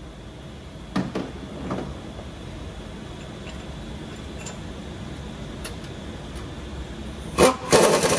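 Workshop sounds during engine work: a few light metal knocks about a second in, over a low steady background. Near the end a sharp, loud burst is followed by a loud, steady mechanical noise that starts abruptly.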